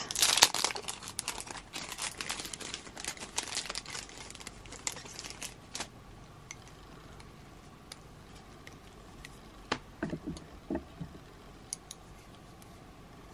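Clear plastic packaging of nail art brushes crinkling as it is handled and opened, dense for the first six seconds or so, then only occasional light clicks and taps.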